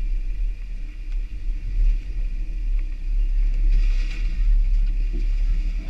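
Jeep Wrangler engine running at crawling speed, a steady low rumble as the Jeep climbs a muddy, rutted trail.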